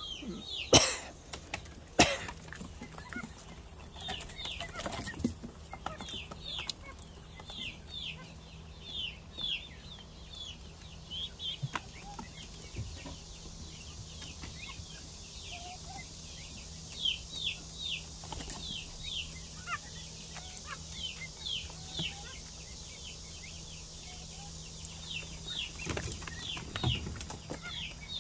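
Young pheasants peeping: short, high, falling calls repeated over and over. Two sharp knocks about a second and two seconds in are the loudest sounds.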